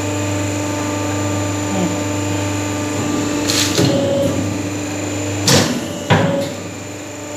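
Double-die hydraulic paper plate making machine running with a steady hum from its motor and pump, with three sharp clunks in the second half as the hydraulic valve levers are thrown and the dies press; the last two clunks are the loudest.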